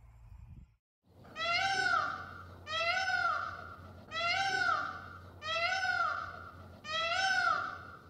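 Peacock (Indian peafowl) calling five times, each call about a second long and rising then falling in pitch, repeated about every one and a half seconds.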